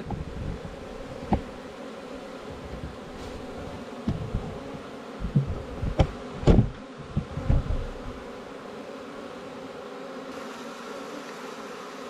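A swarm of honey bees humming steadily at a hive entrance, many bees flying and fanning at once. The beekeeper takes the fanning as the sign that the queen is inside the box. A few soft thumps, loudest in the middle.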